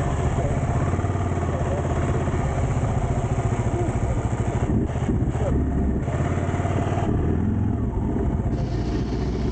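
Kawasaki KLR 650's single-cylinder four-stroke engine running at low revs with a fast, even thumping beat, its pitch shifting briefly about halfway through.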